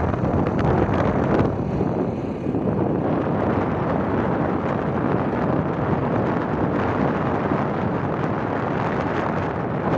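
Wind buffeting the microphone of a phone filming from a moving motorbike: a loud, steady rush with the bike's road and engine noise mixed in underneath.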